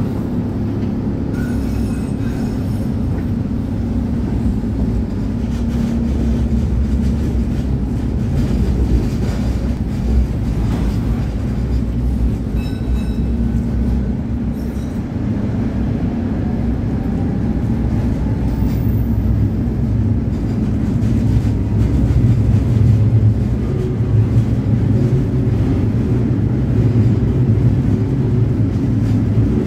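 Tatra T4R tram running along its track, heard from inside the passenger car: a steady, loud low rumble of wheels and running gear, with a few faint knocks.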